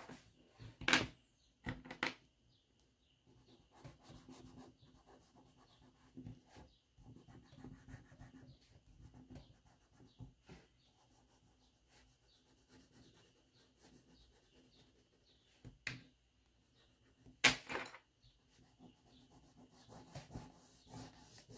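Crayon rubbing back and forth on paper as a drawing is coloured in, soft and scratchy. A few sharp knocks break in, the loudest about three-quarters of the way through.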